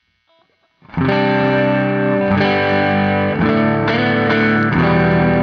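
Electric guitar played through a Zoom G5n multi-effects processor on a distorted patch: a run of sustained, ringing chords starting about a second in, changing every half-second to second.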